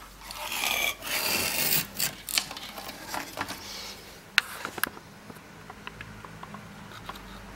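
Handling noise from working on a CRT television's main circuit board: rubbing and scraping for the first two seconds or so, then a few sharp clicks and taps, the loudest about four and a half seconds in, followed by lighter ticks.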